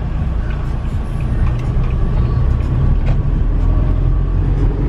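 Steady low rumble of a motor vehicle driving: engine and road noise.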